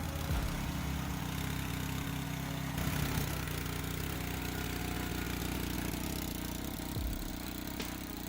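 Engine of a firewood processing machine running steadily, with a mechanical noise over it that grows about three seconds in.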